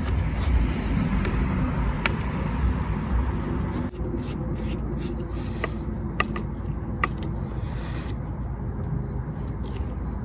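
A hand screwdriver tightening Torx screws into a leaf blower's plastic housing: handling rumble, then a few sharp separate clicks. A steady high insect chirring runs underneath.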